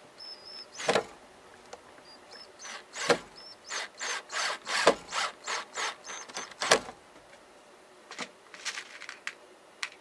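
Hand work on wooden birdhouse parts: four sharp wooden knocks, with a quick run of short rasping strokes, about three a second, between the later ones. A few lighter taps come near the end.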